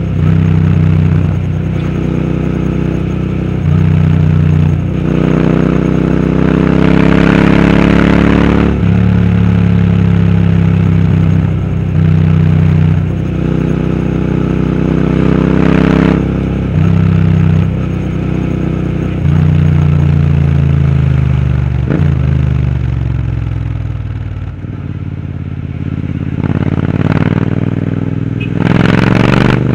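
Royal Enfield Interceptor 650 parallel-twin engine through a Powerage aftermarket exhaust, being ridden with the revs rising and falling many times. The revs ease off and fall for several seconds past the middle, then climb sharply near the end.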